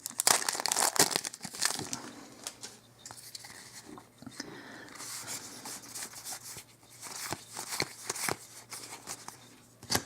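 A Magic: The Gathering booster pack's wrapper being torn open and crinkled, loud and crackly for the first couple of seconds, then quieter rustling with a few sharp clicks as the cards are handled.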